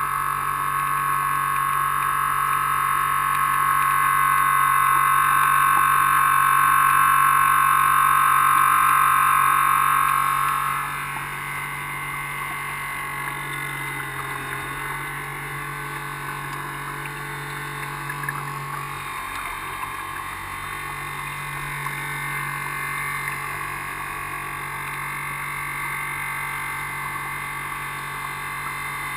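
An RC boat's 380-size brushed electric motors running with a steady whine. The whine is loud for the first ten seconds or so, then drops to a lower, quieter run as the throttle eases.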